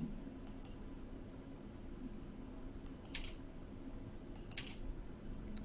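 Quiet room tone with a faint low hum and a few soft computer mouse clicks, the clearest two about three and four and a half seconds in.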